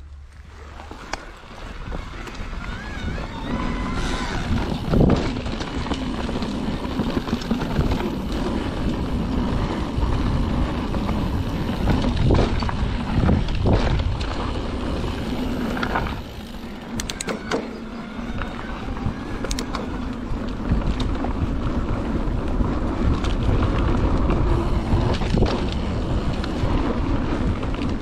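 Mountain bike riding fast down a dirt trail: tyres running over dirt and roots, the bike's parts and chain rattling, with sharp knocks over bumps, and rumbling wind on the microphone.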